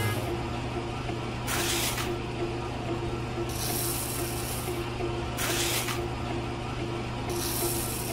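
Small motor driving a miniature shaking sieve, running steadily with a rapid mechanical rattle from the crank and screen. Every couple of seconds a hiss of sand as spoonfuls are poured onto the mesh and sift through.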